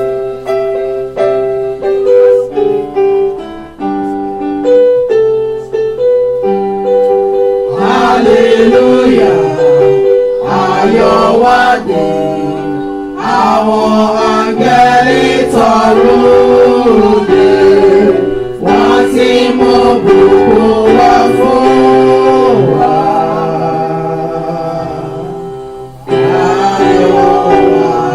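Gospel hymn. A keyboard plays a melody of separate notes, then a choir comes in singing over it about eight seconds in, in phrases with short breaks between them.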